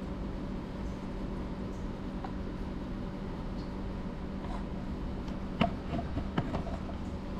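A steady low hum, with a few light clicks and taps of a plastic measuring cup against the scooter's oil filler neck about five and a half to six and a half seconds in, as engine flush is poured in slowly.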